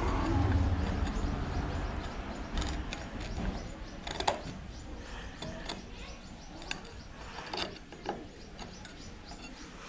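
Metal scraper blade scraping old paint off a wooden cot rail. A continuous rasping scrape for about the first two seconds, then short, irregular strokes with a few sharp clicks of the blade on the wood.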